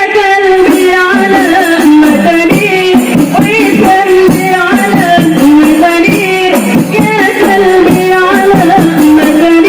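Qasidah rebana music: a high voice sings a bending, held melody over rebana frame drums beating a steady rhythm.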